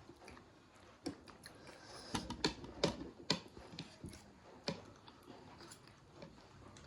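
Eating sounds close to the microphone during a noodle and pakora meal: a string of sharp, irregular clicks and taps, busiest between about two and three and a half seconds in.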